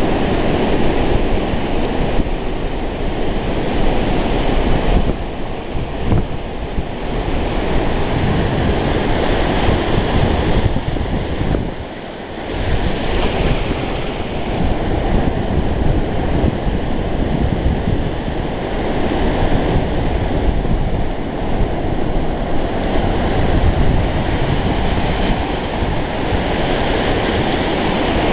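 Sea waves breaking on the shore, with wind buffeting the microphone: a loud, steady wash of noise that dips briefly about twelve seconds in.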